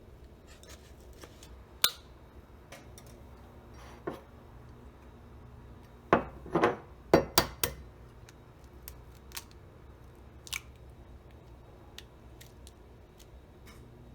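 Kitchen handling sounds: scattered light clicks and knocks, with a quick cluster of louder clattering knocks about six to seven and a half seconds in.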